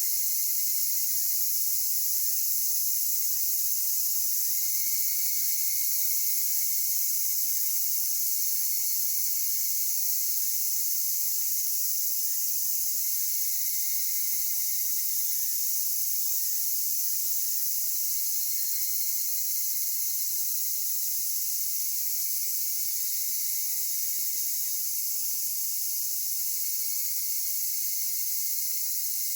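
Steady, high-pitched chorus of insects in full song, with a short call repeating about once a second through the first two-thirds or so.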